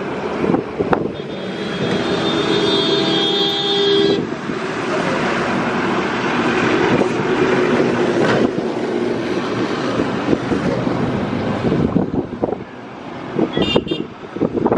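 An Indian Railways electric locomotive sounds its horn, one steady blast of several tones lasting about three seconds. Then the express train runs past with a steady rumble of wheels on rails, and a few sharp clacks of wheels over rail joints come near the end.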